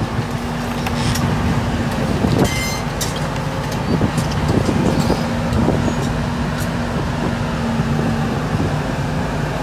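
Volvo tracked excavator running steadily with a constant engine and hydraulic hum while its demolition grab pulls at the building. Several short knocks and clatters of timber and brick debris come through it.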